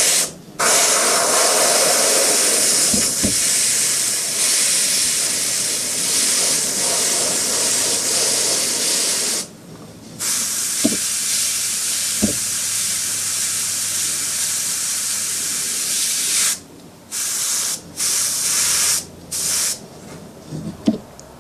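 Airbrush spraying paint on compressed air: a steady hiss held for about nine seconds, a short break, then about six seconds more, ending in three short bursts as the trigger is worked.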